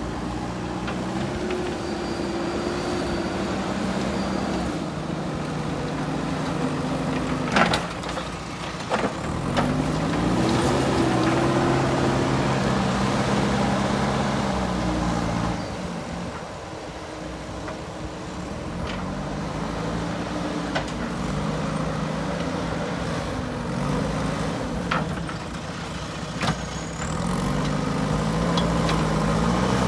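Diesel engine of a JCB 3DX backhoe loader at work, revving up and down repeatedly. A few sharp knocks come through, the clearest about eight seconds in and again near the end.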